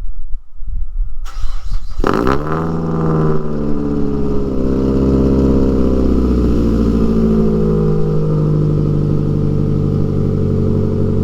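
2009 Mazda3's 2.3-litre four-cylinder, with a racing header, straight pipe and high-flow cat, cranks briefly about a second in, catches with a loud vroom that falls away over a couple of seconds, then idles steadily.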